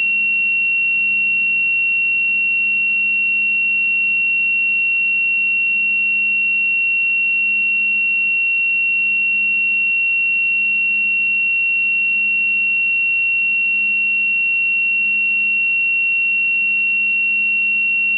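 Digital multimeter's continuity beeper sounding one steady, unbroken high-pitched tone, signalling that the meter still reads continuity because the resistance across its probes is below its turn-off point.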